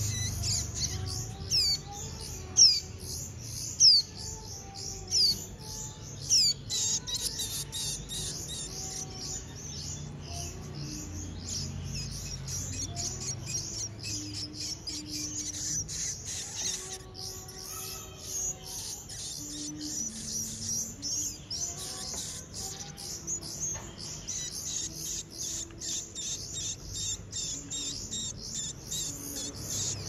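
Nestling songbirds giving rapid, high-pitched begging chirps, a dense continuous chatter with several louder downward-sweeping calls in the first few seconds: hungry chicks gaping to be fed.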